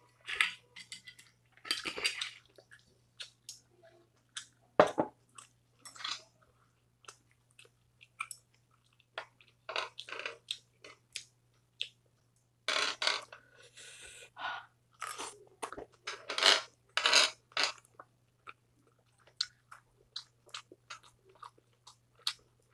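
Close-miked eating of grilled pork belly (samgyupsal): bouts of chewing and crunching bites, with scattered sharp clicks of metal chopsticks. A faint steady hum runs underneath.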